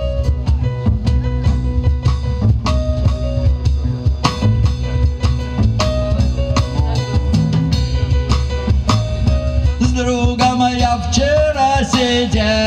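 Live music from a keyboard, double bass and cajón trio: the keyboard plays held melody notes over a plucked double bass line and a steady cajón beat. A man's singing voice comes in about ten seconds in.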